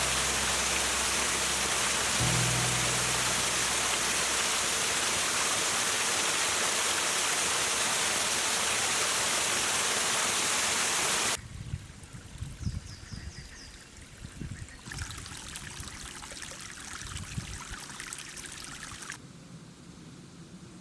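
Heavy rain falling in a steady, loud hiss that cuts off suddenly about eleven seconds in. After it comes a much quieter stretch of soft knocks and a few short high chirps.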